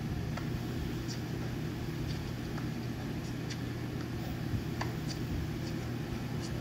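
Steady low hum with a few faint scattered ticks.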